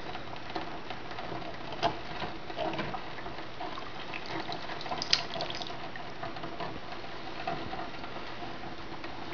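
Cleaning solution sloshing and dripping as a carburetor body is lifted out of an ultrasonic cleaner's tank, with a couple of light clicks.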